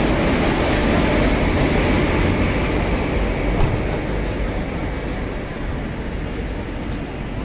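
Passenger coaches of a train departing behind an electric locomotive, rolling past close by on the rails with a steady wheel-and-track rumble that eases slightly after about four seconds. A faint high steady whine sits above it in the second half.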